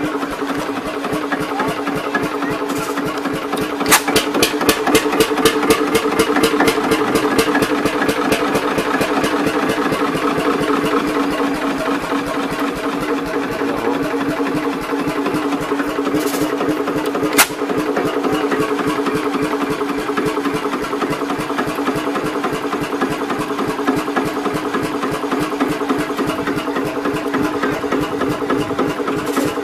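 Vintage stationary diesel engine with large flywheels running, with a rapid, even exhaust beat that grows louder about four seconds in. A single sharp click sounds a little past halfway.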